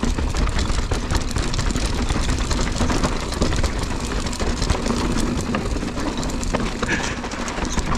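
Mountain bike rolling over a rocky, chunky trail: tyres crunching over rocks and gravel, with many small knocks and rattles from the bike, over a steady low rumble.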